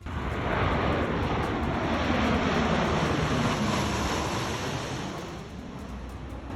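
Airplane engine noise as an aircraft passes low and close, the sound sweeping down in pitch and back up again. It swells quickly at the start and eases slightly toward the end.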